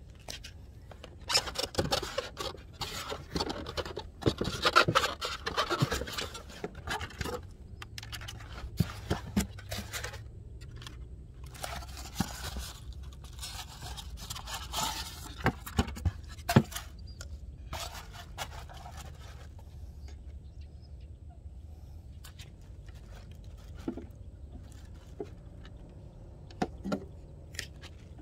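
Handling noise: irregular scraping, rubbing and clicking of plastic parts as hands work on an RC boat's hull cover and a small FPV camera. It is busy for the first half, then thins to a few scattered clicks.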